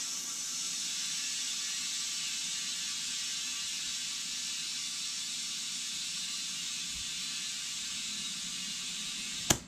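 Steady hiss of compressed air rushing through a tire's valve stem as the just-bead-seated tire is filled, cut off with a click near the end.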